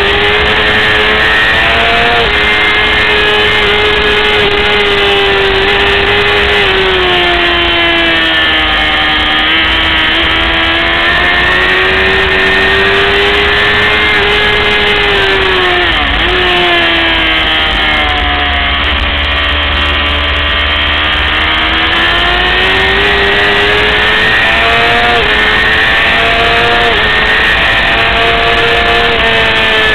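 600 cc racing motorcycle engine running hard at high revs. Its pitch sweeps up and down with throttle and gear changes, with a sharp dip about 16 seconds in.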